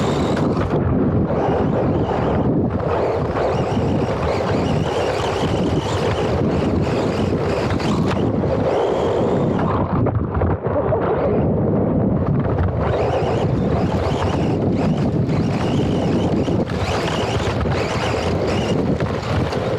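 RC car running over dirt, heard from a small action camera mounted on the car: a continuous rushing noise of wind on the microphone mixed with the car's rumble over the ground. The hiss drops away for a couple of seconds about halfway, then comes back.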